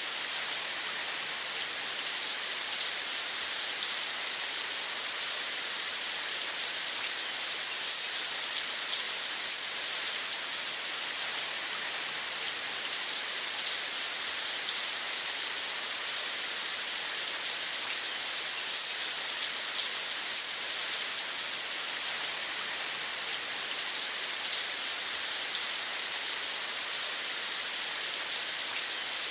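Steady rain falling, an even hiss of many fine drops with no change in level.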